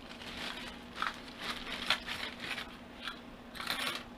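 Packaging being handled and pulled open: several irregular bouts of crinkling and tearing, over a steady low hum.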